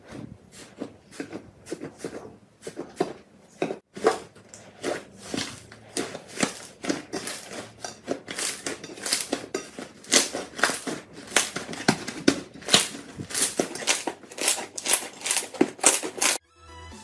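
Slime being squeezed and pressed by hand, making repeated wet pops and crackles, about two to three a second, that stop abruptly near the end.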